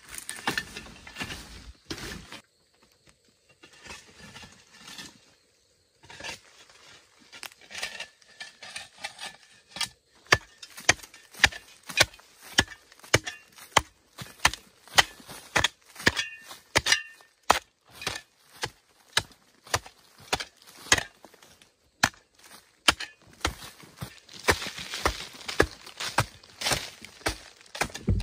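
Metal hoe blade chopping into hard red clay, with sharp strikes repeating about two a second and loose earth falling away.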